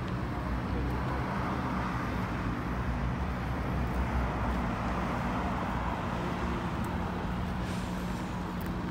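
Road traffic: a steady low engine hum, with a vehicle passing that swells and fades over a few seconds.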